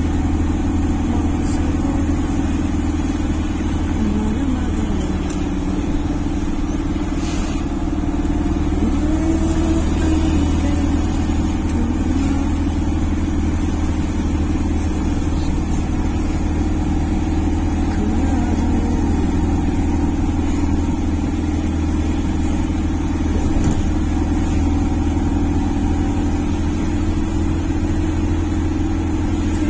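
Motor vehicle engine running steadily, a continuous low drone with no breaks or changes in pace.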